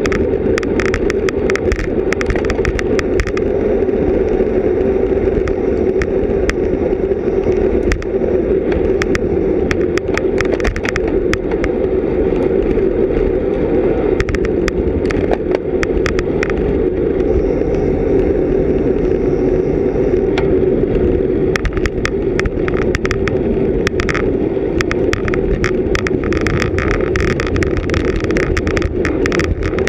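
Racing road bicycle at speed, heard from a bike-mounted action camera: steady rushing wind and tyre noise. Runs of sharp clicks and rattles come in the first few seconds and again over the last several seconds.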